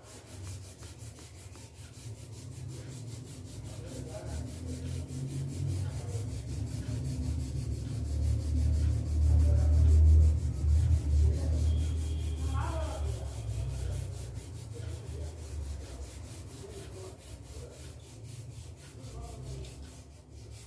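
Folded tissue paper rubbing over oil pastel on paper, blending the colours: a continuous scrubbing rub that swells to its loudest around halfway, then eases off.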